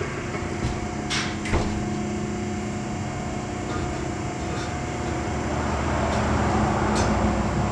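Steady low mechanical hum, with a few sharp metal clicks and clanks about a second in and again near the end.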